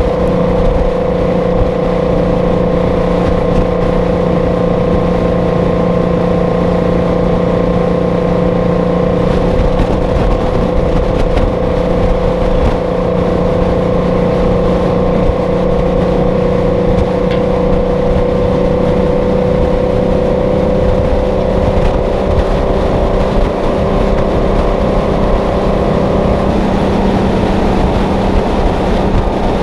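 Detroit Diesel 12V-71 two-stroke V12 in a Kenworth W900A pulling steadily at cruising speed, a constant drone over wind and road rush. Its note eases slightly near the end.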